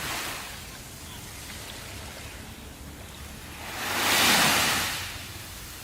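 Sea waves: a steady wash of surf, with one wave swelling and breaking loudest about four seconds in, then falling back.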